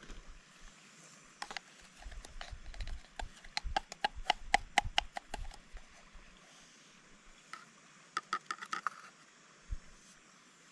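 Sharp, light metallic clicks and clinks from small camp cooking gear being handled: a quick run of them in the middle and a shorter ringing cluster near the end.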